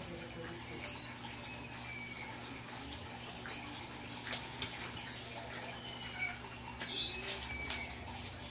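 Two small dogs play-wrestling on a blanket: rustling fabric and scuffling, a few sharp clicks, and brief high squeaks that slide in pitch.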